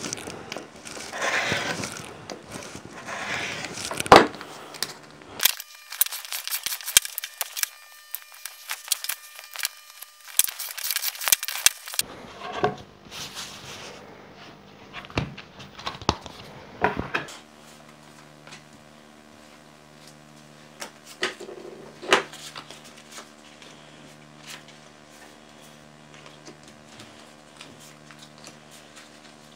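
A rotary cutter rolling through card along a steel ruler on a cutting mat, with a sharp click about four seconds in; then scattered handling of paper and card, rustling, tapping and sliding. Near the end, small playing cards are handled and laid down, over a steady low hum.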